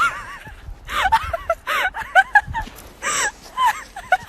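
Puppies whimpering and squealing in many short, high-pitched cries, one after another, impatient and eager to be fed.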